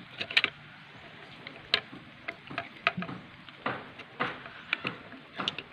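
Hand wire stripper snipping and clicking as it strips insulation from thin wires: about a dozen sharp, irregular clicks.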